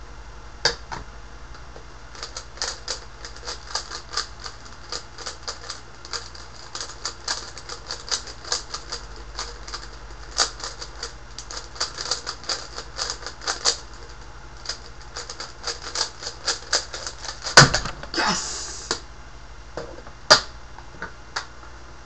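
Plastic Rubik's Cube being turned rapidly one-handed: a long run of sharp, irregular clicks, several a second, like typing. Near the end of the run comes a loud thump as the solve finishes, then a short rush of noise and a couple of single clicks.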